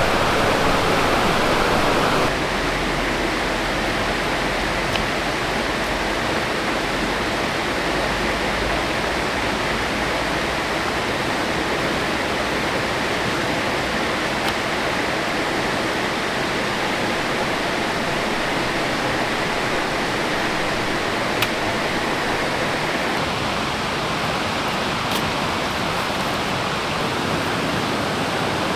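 A forest stream's water running steadily. It drops slightly in level about two seconds in, with a faint tick or two over it.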